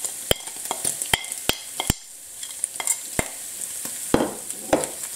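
Minced meat frying with a steady sizzle in a non-stick pan, while a metal spoon gives several sharp clicks, about five in the first two seconds, as spices are scraped off a china plate into the pan. Near the end a wooden spatula stirs and scrapes through the mince.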